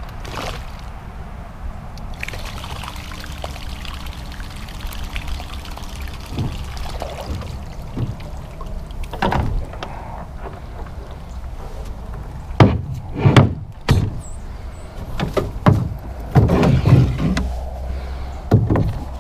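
Water sloshing and trickling around a plastic kayak hull as it pushes into a shallow, leafy bank. In the second half comes a run of loud, irregular knocks and thumps from the hull and paddle being handled.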